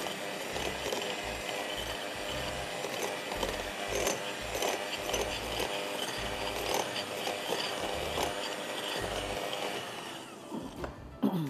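Electric hand mixer running in a glass bowl, its beaters creaming butter and lumpy brown sugar, with scattered knocks as lumps and beaters strike the bowl. It winds down about ten seconds in.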